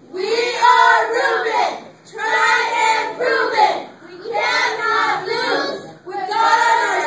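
A group of children chanting a cheer together in unison, phrase after phrase, each about two seconds long with short breaks between.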